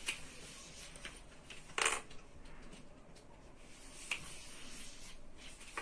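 Light clicks and taps of small number tiles being picked up and set down in a row on a board, with one louder brief knock about two seconds in.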